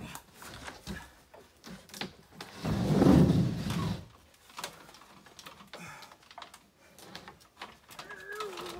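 Framed plywood wall panel scraping and knocking against the wooden frame of an elevated deer blind as it is pushed up onto the platform. The loudest scrape, about a second long, comes about three seconds in, with scattered light knocks around it.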